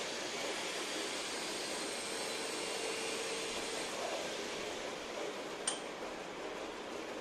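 Steady background hiss with a single sharp metallic click a little over five seconds in, a hand tool touching the Pulsar 150 engine while the tappet nuts are being set.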